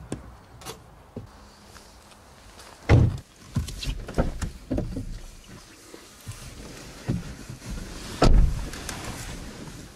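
Car doors shutting: two heavy thumps, about three seconds in and again a little past eight seconds, with lighter knocks and handling noises between.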